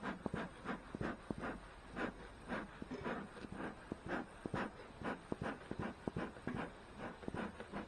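Beekeeper's smoker bellows being pumped over and over: short puffs of air, about three a second and a little uneven, as he tries to coax smoke out of the smoker.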